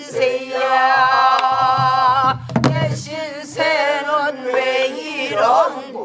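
Pansori singing: two long, wavering held notes, with a buk barrel drum struck sharply about halfway through, between them.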